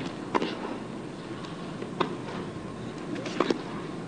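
Tennis ball struck by racquets in a baseline rally: sharp hits about every one and a half seconds, the third a quick pair close together, over a steady background hum of the arena.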